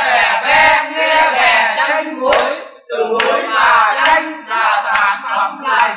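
A group of men chanting a vè, a rhymed Vietnamese folk verse, together in unison phrases, with sharp percussive beats keeping time.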